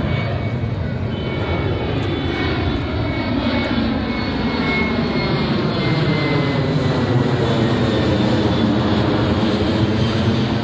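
Boeing 737 jet airliner's twin turbofan engines at climb thrust just after takeoff, passing overhead: a loud, steady jet roar with a thin high whine over it and a slow sweeping, phasing sound as the plane goes over.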